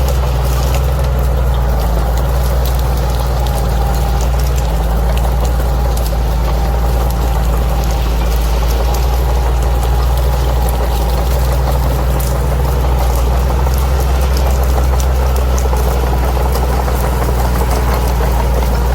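Bulldozer's diesel engine running steadily with a low, even drone, with faint scattered clicks and rattles over it.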